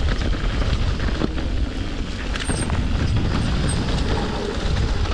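Mountain bike being ridden through mud on a trail: a steady low rumble of tyres and wind on the microphone, with scattered clicks and rattles from the bike.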